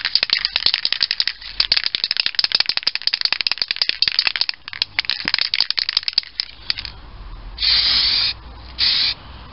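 Aerosol can of primer being shaken hard, its mixing ball rattling rapidly for about six seconds, then two short bursts of spray hissing out of the nozzle near the end.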